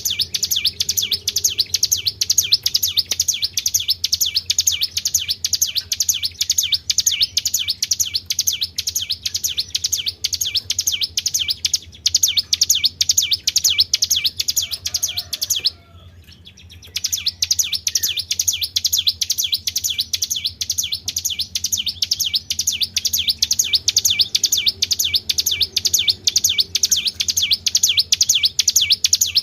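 A small songbird repeating fast, high-pitched 'tribel' chirps, about four a second in an even run, with a pause of about a second roughly two-thirds of the way through.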